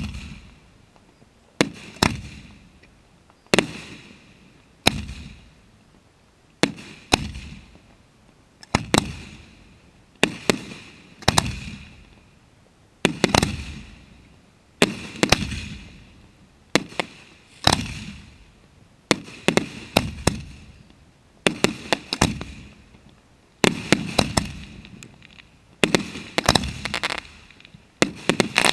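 Fireworks of a professional display going off in a steady series, a sharp bang every second or two, each fading out in a rolling echo; now and then several reports come in a quick cluster.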